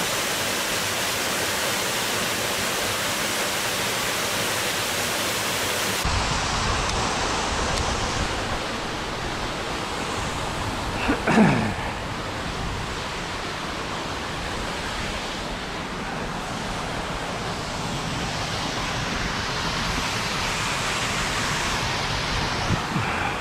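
Waterfall with a steady rush of falling water. From about six seconds in, wind buffets the microphone. About eleven seconds in there is a brief falling tone, the loudest moment.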